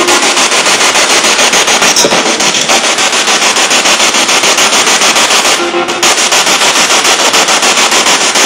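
Spirit box (radio-sweep ghost-hunting device) scanning through radio stations: loud static chopped into rapid, even pulses many times a second, with brief snatches of broadcast voice that the investigators take for spirit voices saying "I'm sorry… that you died" and "well, I'm not".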